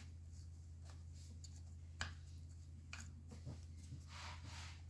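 Fingers packing loose shredded tobacco into the plastic chamber of a Gizeh Silver Tip Boy cigarette-filling machine: faint rustling and scratching with a few small clicks, the sharpest about two seconds in, over a low steady hum.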